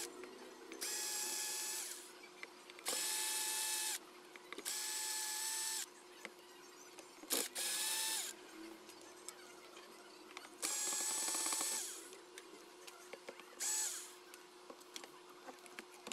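Cordless electric screwdriver running in short bursts of about a second each, about seven times, with a steady motor whine each time as screws are run out of the amplifier chassis. Light clicks of handling come between the bursts.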